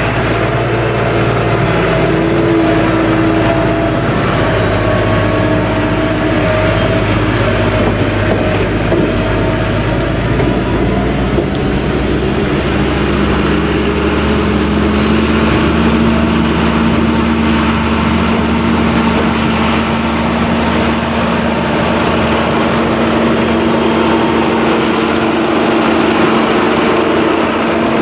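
Diesel tractor engines running steadily at close range. About halfway through, the engine note changes and a new, higher tone comes in as a second tractor hauling a silage trailer pulls up alongside.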